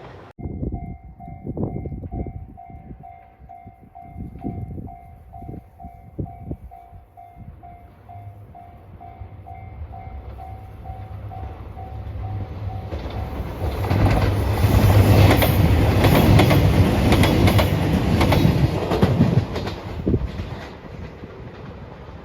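A Japanese level crossing alarm bell ringing at about two dings a second. About 13 seconds in, a train passes over the crossing, its wheels and running noise building to a loud pass and drowning the bell out, then fading.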